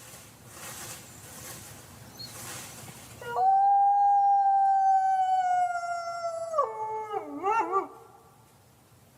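A wolf howling once, starting a few seconds in: a long, steady note that sinks slowly, then drops lower and wavers up and down before breaking off. A faint hiss of background noise comes before it.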